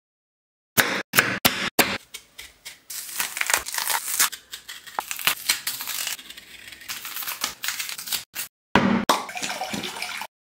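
Raw green banana peeled by hand, the firm skin tearing and crackling for several seconds after a few sharp clicks. Near the end, water is poured from a bottle into a glass bowl.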